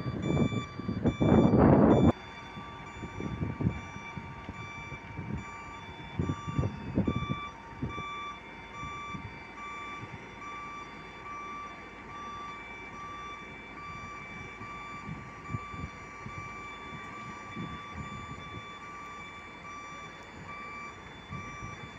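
Electronic warning beeper on a mobile crane sounding steadily, about two beeps a second, while the crane hoists a concrete bridge girder. A loud low rumble fills the first two seconds, and low thuds come and go under the beeping.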